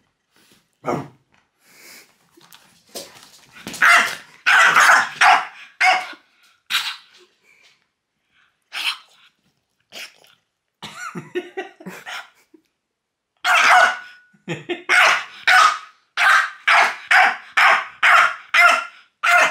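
French bulldog barking in short, loud bursts, with a fast run of about three barks a second in the last few seconds.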